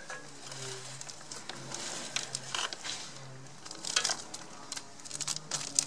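Metal roller-chain links clicking and clattering as a new motorcycle drive chain is pulled slowly by hand around the rear sprocket. The clicks come in loose clusters, around two seconds in, about four seconds in and near the end.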